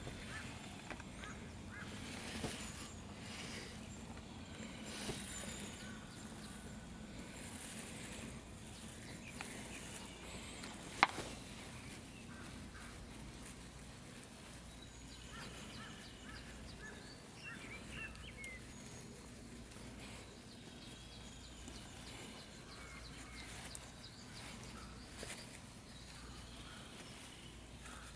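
Wild birds calling with short, scattered chirps over a steady faint background hiss. One sharp click comes about eleven seconds in.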